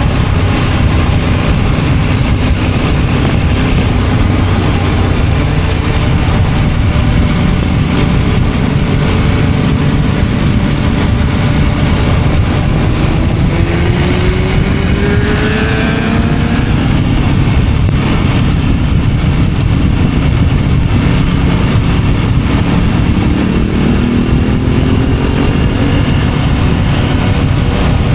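Motorcycle riding at speed, heard as heavy wind noise on the bike-mounted microphone over the engine note. The engine pitch rises about halfway through and again near the end as the bike accelerates.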